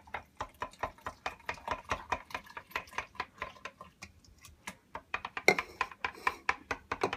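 Spoon stirring mango agua fresca in a glass pitcher, clinking against the glass in a rapid, even rhythm of several clinks a second.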